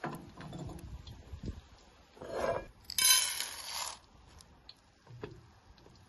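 Raisins poured from a glass bowl into a small frying pan of oil, rattling in for about a second near the middle. Shortly before, the pan scrapes across the cast-iron stovetop.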